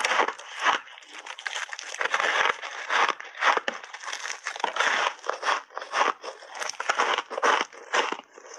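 Crunching of a powder-coated qian ice block being bitten and chewed, heard close up on a clip-on microphone: a big bite right at the start, then a dense, continuous run of crackling crunches as the ice is ground between the teeth.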